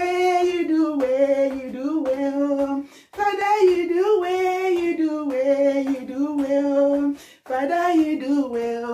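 A woman singing unaccompanied, in phrases of long held notes, breaking off briefly about three seconds in and again about seven seconds in.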